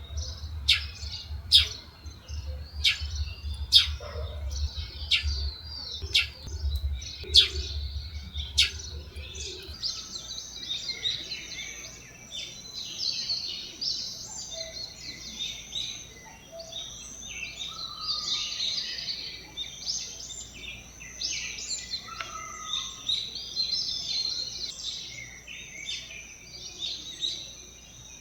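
Birds chirping and calling: sharp, repeated high calls for the first ten seconds or so, then a denser chorus of overlapping chirps.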